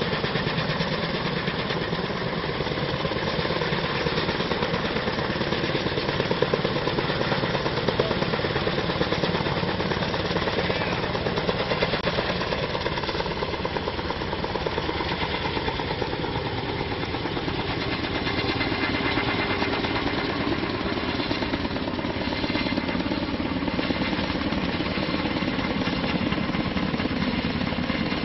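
Kaman K-MAX helicopter in flight: the intermeshing twin rotors beat rapidly and steadily over the run of its turbine engine.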